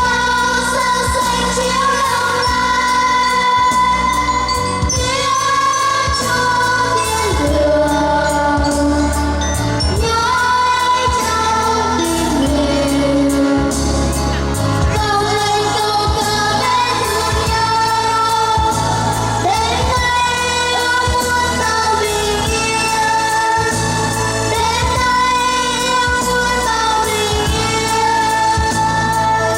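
Two young singers performing a song over instrumental accompaniment, with long held notes above a steady bass line.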